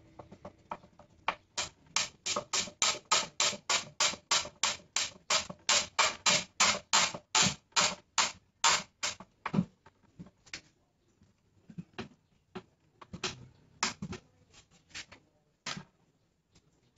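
A wood screw being driven into plywood with a hand screwdriver, each twist of the wrist giving a short squeak, about three or four a second for several seconds. After that, a few scattered squeaks.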